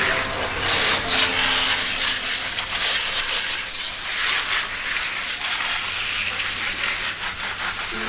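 Water jetting from a pistol-grip hose spray nozzle onto plastic air-conditioner parts: a continuous hiss with splashing that swells and eases as the spray is moved across the parts.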